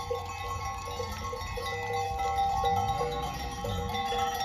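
Many sheep bells clanking at different pitches as a flock of sheep moves along, over a low steady rumble.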